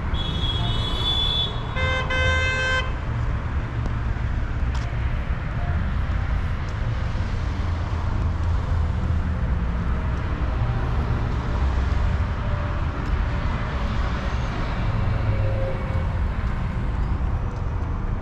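Steady street traffic rumble. A high thin tone sounds at the start, and a short vehicle horn toot comes about two seconds in.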